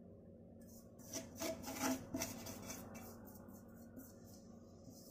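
Tapioca flour being shaken and rubbed out of a small stainless steel bowl into a larger one: a run of short, soft rasping rubs for about two seconds, starting about a second in.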